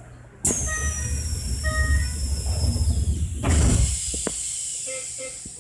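Sliding doors of a Keisei 3000 series commuter train closing: a sudden hiss about half a second in, a short chime sounding twice, then the doors shutting with a heavier whoosh about three and a half seconds in, followed by a steady hiss and low rumble from the train.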